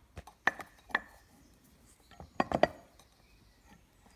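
Metal clinks and knocks of a brake caliper being handled and slid onto its carrier's greased guide pins: two light ringing clinks in the first second, then a quick cluster of three knocks about halfway through.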